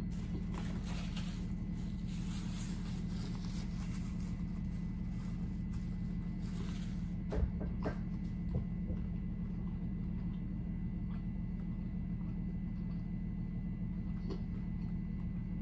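A person chewing a mouthful of tortilla chip and rice-bowl food with her mouth closed, crackly crunching in the first several seconds, over a steady low hum. A few short clicks come about seven and a half to nine seconds in.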